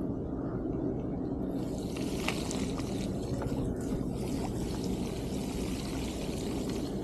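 Mountain bike tyres rolling through wet ground and shallow floodwater, with water hissing and spraying from about a second and a half in, over a steady low rumble of wind on the chest-mounted camera.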